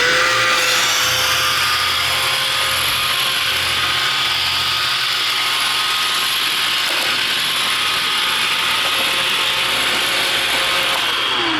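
iRobot Roomba 550 robot vacuum running: steady whine of the vacuum fan over the whir and rattle of the spinning brushes and gearbox, winding down near the end.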